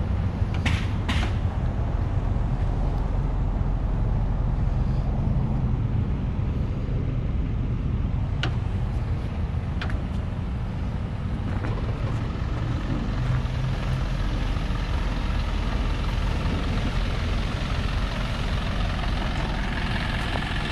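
Diesel engine of a 2013 Isuzu NQR box truck idling steadily, with a few short clicks near the start and around the middle.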